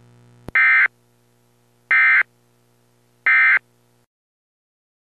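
Emergency Alert System end-of-message signal: three short, shrill bursts of warbling digital data tones about a second apart, which mark the end of the alert. A click comes just before the first burst, and a faint low hum under them stops shortly after the last.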